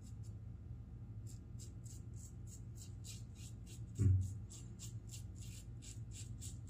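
Raw Shaving safety razor scraping through lathered stubble in short, rapid strokes, about three a second. A single dull thump about four seconds in.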